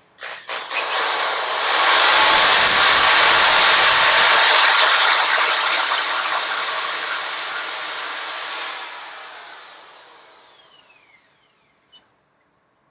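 Small electric drill with a 3/32-inch bit drilling a pilot hole. A high motor whine rises about a second in and holds steady over the grinding of the bit, then falls as the drill winds down near the end.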